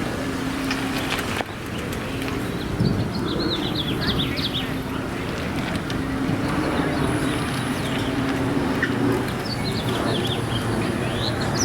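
Street traffic hum with a car engine running steadily, and a small bird chirping in quick runs about three seconds in and again near the end.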